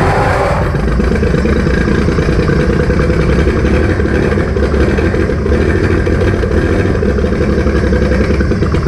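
Ford 4.9-litre (300) inline-six engine running steadily after catching, with no exhaust fitted, on a makeshift wired-up ignition. The timing is likely off because the engine was meant to have a computer set it.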